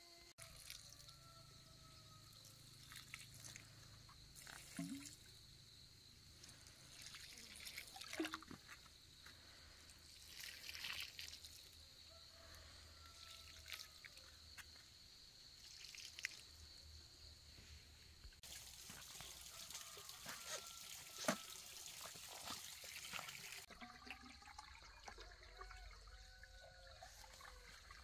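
Water pouring and trickling from a bamboo tube onto garden soil as seedlings are watered by hand. Faint, with a few soft knocks.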